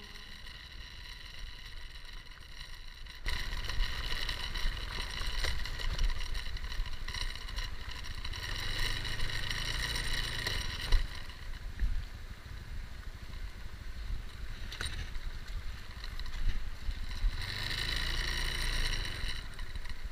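Honda motor scooter being ridden over a rough dirt track, its small engine running under wind and road noise. The engine is quieter at first, picks up about three seconds in, and twice rises and falls in pitch as the throttle is opened and eased, with a few knocks from bumps.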